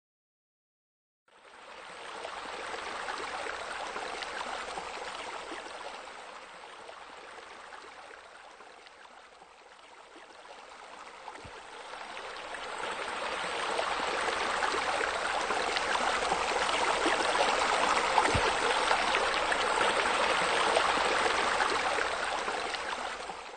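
Water spilling from a pool's raised water feature into the pool, a steady rushing splash. It comes in about a second in, sinks to its quietest near the middle, grows louder again through the second half and cuts off suddenly at the end.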